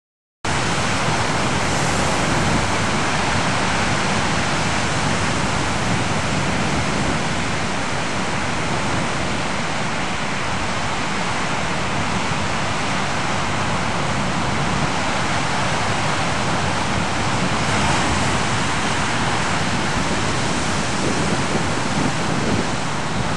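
Ocean surf breaking and washing onto a beach: a steady, dense rush of noise that starts abruptly just under half a second in and swells only slightly.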